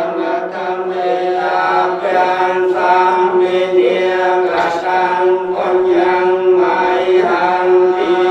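Buddhist monks chanting Pali paritta blessing verses in unison, a steady drone held on one level pitch and broken into syllables, with no pause.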